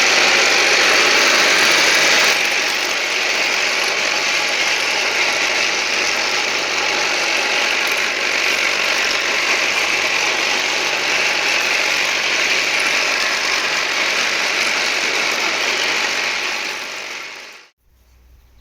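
A machine switched on and running loud and steady with a rattling, grinding noise. It drops a little in level about two seconds in and cuts off abruptly near the end.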